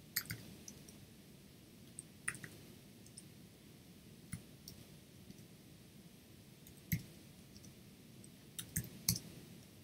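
Keys clicking on a computer keyboard as numbers are typed in and entered one at a time. The clicks are faint and scattered, a second or more apart, with a quick cluster near the end.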